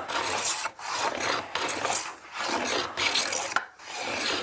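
Metal hand plane cutting along a wooden board in repeated strokes of about a second each, with short breaks between them. The blade bites unevenly, hit and miss, as it rides over the ridges left by the scrub and hogging planes while the surface is brought back to flat.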